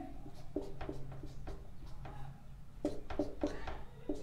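Marker pen squeaking on a whiteboard as fused benzene rings are drawn, a string of short squeaky strokes that come faster about three seconds in.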